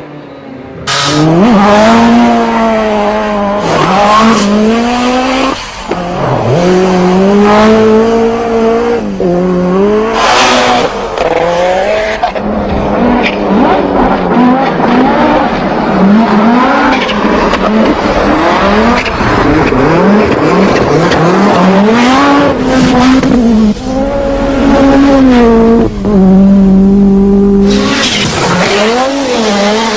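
Group B rally car engines revved hard, the pitch climbing and dropping again and again through gear changes.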